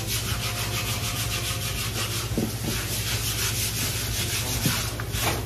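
Rapid rhythmic scraping, about six or seven strokes a second, from fish being scaled at the prep counter, over a steady low hum. The scraping stops near the end.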